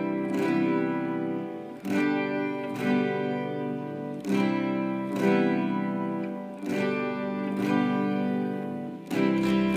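Instrumental intro of a song: guitar chords struck about every second or so and left ringing.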